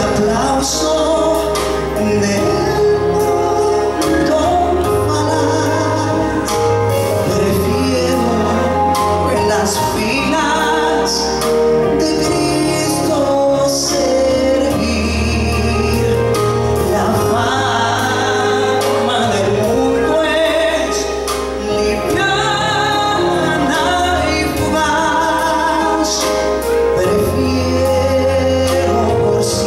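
A man singing a Christian ballad into a handheld microphone over accompanying music, with sustained bass notes that change every few seconds.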